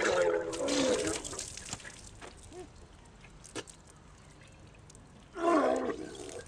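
A man retching into a plastic bottle after eating Carolina Reaper chili: a strained, voiced heave at the start and another near the end, with liquid dribbling and dripping into the bottle between them.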